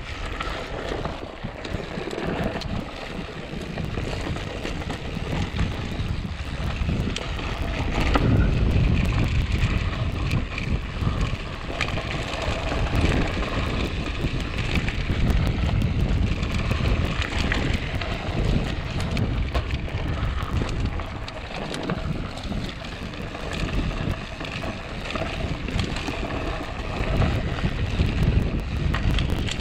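Wind buffeting the microphone of a camera carried on a mountain bike ridden along a dirt singletrack, over a steady low rumble and rattle of tyres and bike on the trail.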